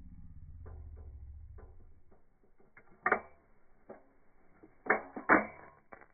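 Exothermic welding gear being handled: a string of sharp clicks and knocks, loudest once about three seconds in and twice about five seconds in. A low hum fades out over the first two seconds.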